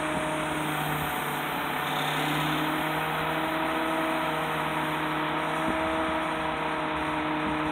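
Bucket truck's engine and boom hydraulics running steadily as the aerial bucket is lowered: a continuous hum with several held tones.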